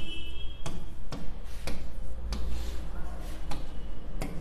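A marker pen tapping and scraping on a writing board as a word is written, giving irregular short clicks about twice a second over a steady low hum.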